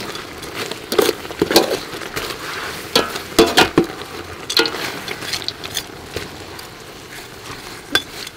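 Metal spoon stirring and scraping through a pot of braising pork legs in thick sauce, clinking against the pot several times, with a cluster of strikes around three to four seconds in and another near the end.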